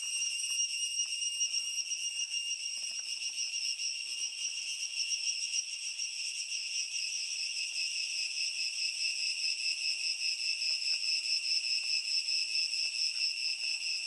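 Cicada singing: a continuous shrill, high buzz with a rapid pulse running through it, the pulsing growing more distinct about halfway through.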